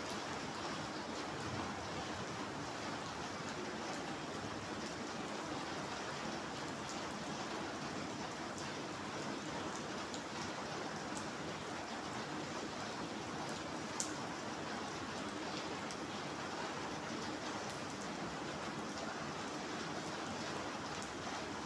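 Steady rain falling on wet concrete paving and puddles, with scattered drip ticks and one sharper tick about two-thirds of the way through.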